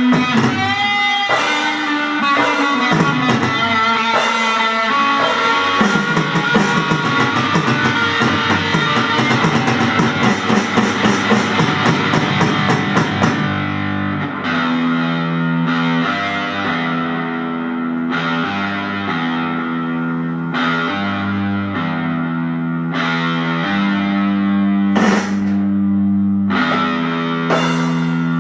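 Instrumental rock music led by electric guitar: fast picked notes for about the first half, then slower held chords.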